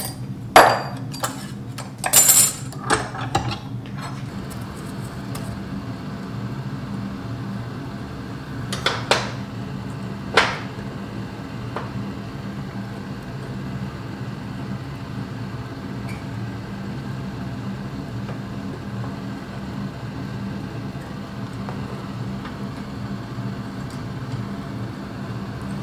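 Small metal tools and wire clinking and tapping: a few sharp clinks in the first four seconds, the brightest about two seconds in, and two more around nine and ten seconds in, over a steady low mechanical hum.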